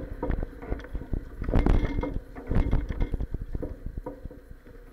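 Clacks and bumps of a bicycle in motion, carried through the action camera's enclosed waterproof case, as a dense run of irregular knocks over a low rumble. The knocking is heaviest in the middle and thins out near the end.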